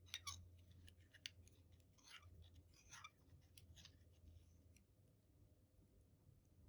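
Faint chewing and sticky mouth sounds of someone eating natto pasta: a few short scratchy bursts in the first half and scattered small clicks, then quieter.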